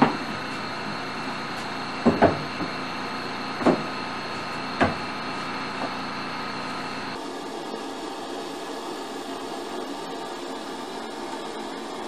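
Wooden boards knocking sharply a few times in the first five seconds as aspen tongue-and-groove siding is handled and fitted against a wall, over a steady background hiss. About seven seconds in, the hiss changes abruptly to a quieter, thinner one.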